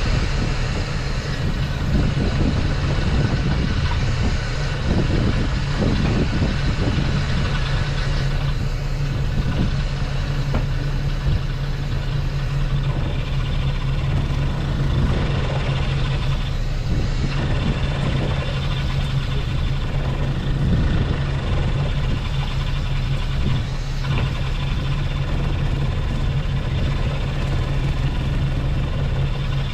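Small fishing boat's engine running steadily, a constant low drone under the deck.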